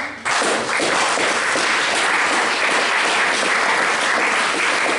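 Audience applauding: dense, steady clapping that swells up just after the start.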